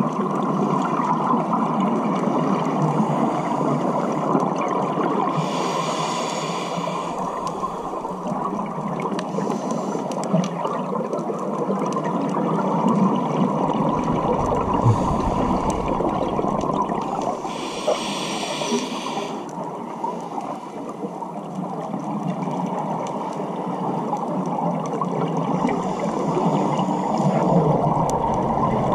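Underwater sound of a scuba dive: a steady wash of water noise, broken twice by the hiss of a scuba regulator as a diver breathes in, and by the deep rumble of exhaled bubbles.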